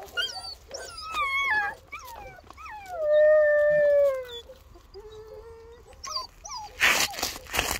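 Bernese mountain dog puppy whining and yelping: a few short high yips, a whine that falls in pitch, then a long, loud whine that slides down and holds before dropping away, and a lower, shorter whine after it. Near the end, a crinkling of packaging being pawed and tugged.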